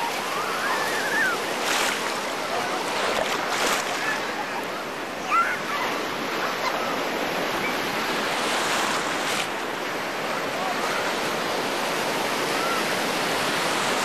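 Surf breaking and washing through the shallows in a steady rush of strong waves, with a few brief, faint shouts of children playing in the water.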